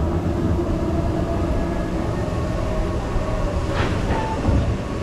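Vekoma roller coaster train rolling along its steel track, a steady low rumble of wheels with a few faint thin tones from the wheels on the rails. A brief hiss sounds about four seconds in.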